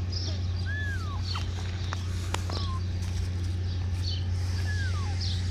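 Kittens mewing: three short, thin calls that fall in pitch, one every second or two, over a steady low hum.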